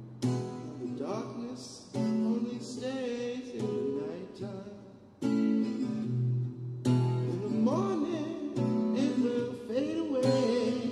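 Acoustic guitar strumming chords, a fresh strum every second or two, with a wavering melody line gliding over the ringing chords.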